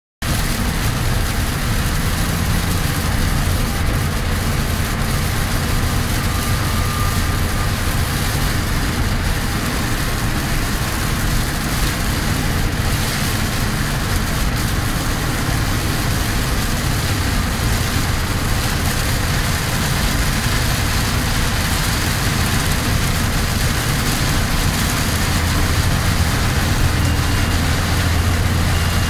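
Heavy rain hitting a Kenworth T350 truck's cab and windscreen, heard from inside the cab, over the steady running of its Cummins ISC diesel engine.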